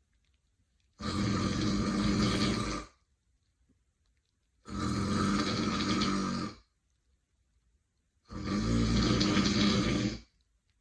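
A woman snoring: three long snores of about two seconds each, evenly spaced, with near-silent pauses between them.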